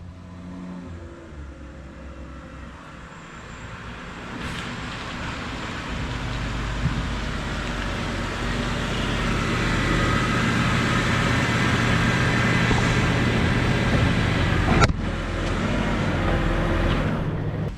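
BMW 328i's N52 inline-six engine running through its factory exhaust as the car is brought into the shop. It grows steadily louder over the first ten seconds or so and briefly cuts out about fifteen seconds in.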